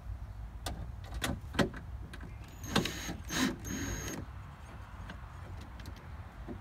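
Cordless drill/driver running in two short bursts, a bit under three seconds in and again about half a second later, with a high motor whine, driving a bolt into the window regulator motor's mount. A few sharp clicks and knocks from handling the bolt and drill come before it.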